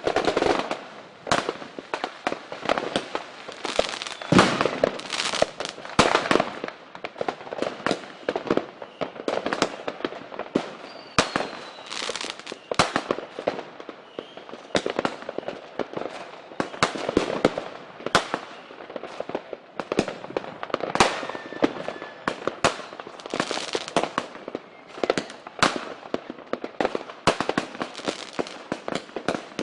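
Many fireworks going off at once: a dense, unbroken run of bangs and crackles, many overlapping, with a faint falling whistle near the middle.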